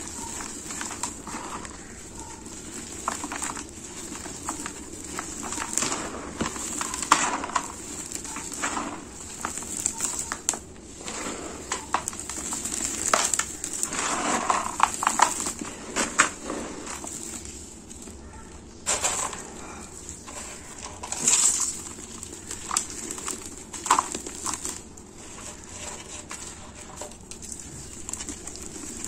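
Dry sand-cement clumps crumbling and crunching between gloved hands, with powder and grit falling back into a plastic tub. Irregular crackling, with denser clusters of crunches every few seconds.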